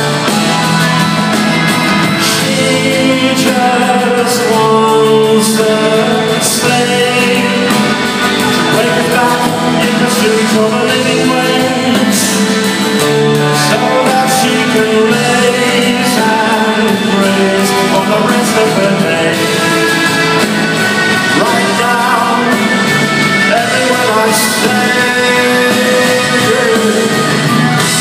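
Live rock band with guitars, drums and keyboards playing an instrumental stretch of a slow rock song, heard through a phone's microphone in a large hall.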